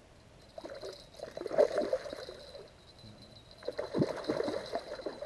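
Water splashing and sloshing in the shallows at a river's edge, in two bouts of a second or two each.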